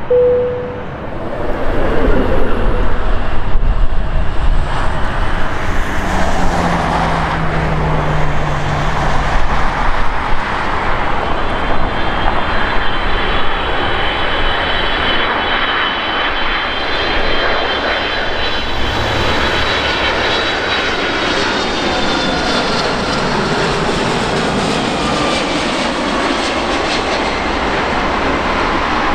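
Delta Boeing 757-200's twin Pratt & Whitney PW2037 turbofans on final approach for landing: a steady loud jet rumble. Through the middle of the pass it carries a high fan whine, and the low end sweeps slowly as the aircraft comes closer.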